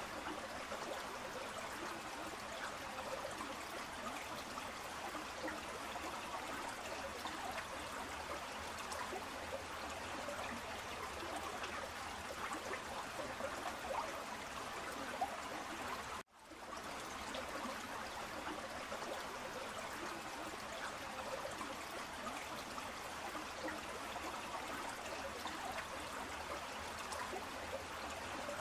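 River water flowing over a stony bed, a steady babbling rush. About halfway through it cuts out abruptly and fades back in.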